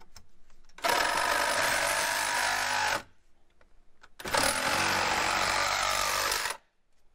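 Cordless reciprocating saw cutting through a metal bracket, in two runs of about two seconds each with a short pause between.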